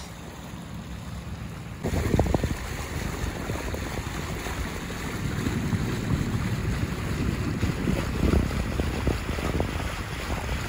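Water rushing and splashing along a sailboat's hull, with wind buffeting the microphone; the louder rush comes in suddenly about two seconds in.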